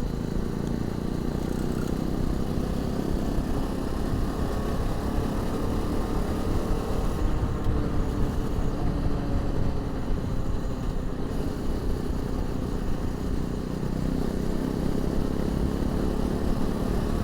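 Honda CRF250 Rally's single-cylinder engine running steadily under way, heard from a lavalier mic inside the rider's crash helmet.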